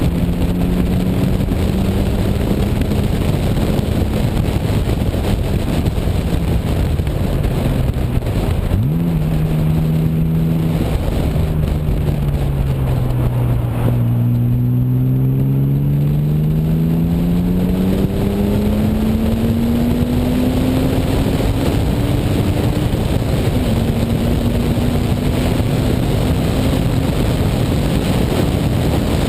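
1998 BMW E36 M3's straight-six engine driven hard on a race track, heard from outside the car. Its note jumps in a quick downshift blip about nine seconds in, sinks low through a corner, then rises steadily under full acceleration, drops with an upshift a little past halfway and climbs again, over a steady rush of wind and road noise.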